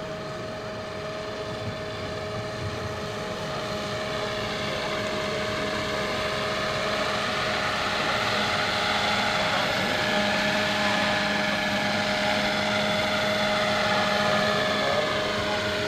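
Radio-controlled scale model of an Ecureuil AS-350 helicopter flying: a steady whine of its drive and main rotor, growing louder as it comes close.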